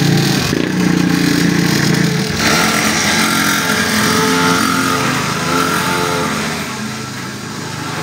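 Small 49cc two-stroke engine of a children's mini dirt bike running and revving as it pulls away, the note changing about two seconds in and growing quieter near the end. It runs on a newly fitted carburettor, the old carburettor having been the fault that kept it from running.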